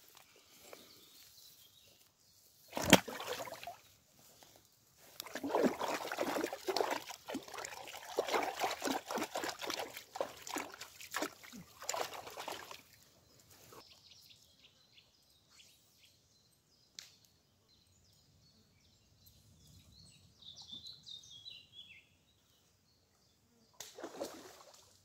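Water splashing at the edge of a pond as a caught catfish is put back: one sharp splash about three seconds in, then about eight seconds of irregular splashing and sloshing in the shallows.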